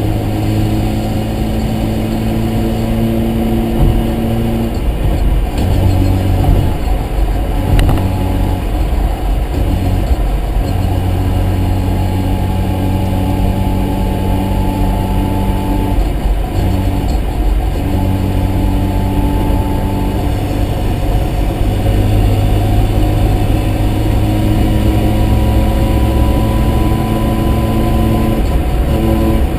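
Mazda RX-7's rotary engine running in a car under way. The engine note holds steady for stretches and then changes pitch several times. There is one short sharp click about eight seconds in.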